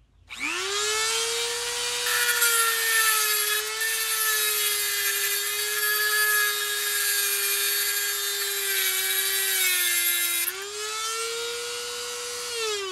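Corded Dremel MultiPro rotary tool with a TungstenMate diamond-disc attachment spinning up with a high whine, then cutting through a tungsten welding electrode. A gritty grinding hiss joins in about two seconds in, and the motor's pitch sags slightly under the load. The grinding stops about ten and a half seconds in as the electrode is cut through, the motor speeds back up, and near the end it is switched off and winds down.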